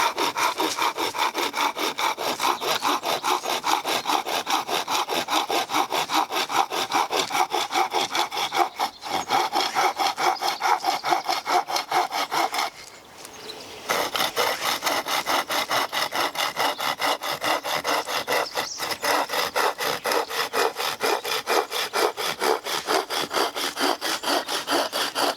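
Hand-sawing a piece of hardwood with a reciprocating-saw blade fixed to the end of a knife, in quick, even push-pull strokes about four a second. There is a pause of about a second about halfway through before the sawing resumes. The blade cuts through with little effort.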